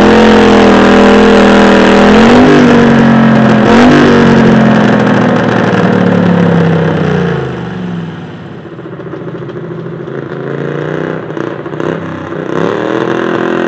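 Pulling garden tractor's engine running loud at high revs, blipped up twice in the first four seconds, then winding down about seven seconds in and running much quieter, with one short rev near the end.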